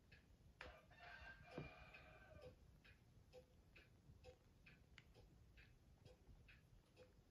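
Faint, regular ticking of a clock, a little over two ticks a second, with a rooster crowing once about a second in, the crow lasting about two seconds.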